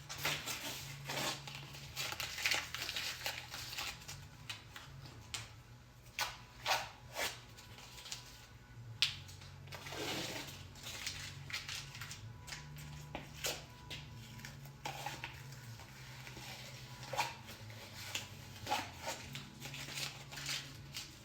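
Tape being peeled off an LS V8 engine in irregular short crackling rips, with scattered clicks of handling, over a low steady hum.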